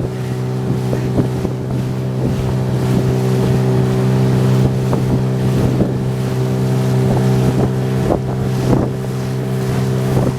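Boat motor running at a steady pitch, with wind gusting over the microphone and waves splashing.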